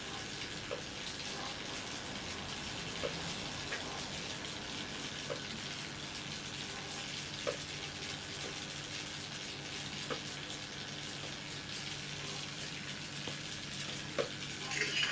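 High-voltage arcing from a microwave-oven transformer at about 2,000 volts, burning across a plasma TV panel: a steady sizzling hiss over a low hum, with a sharp snap every second or two. It flares louder and then cuts off suddenly at the very end.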